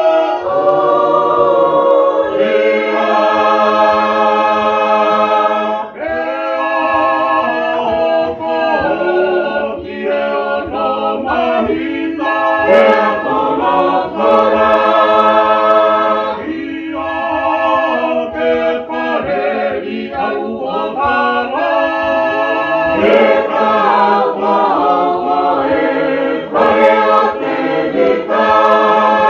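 A Tongan church choir singing a hymn a cappella, in held chords phrase after phrase with brief breaths between.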